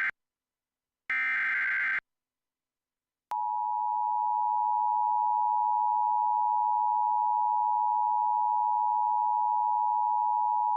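Emergency Alert System tones: the end of one burst of SAME digital header data right at the start, a second roughly one-second burst of the header screech about a second in, then, after a short gap, the steady two-tone EAS attention signal (853 and 960 Hz together) sounding from about three seconds in.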